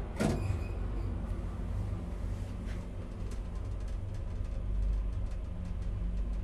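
KONE passenger elevator car travelling up between floors, with a steady low hum and rumble. A short clunk comes just after the start, and there are faint scattered ticks during the ride.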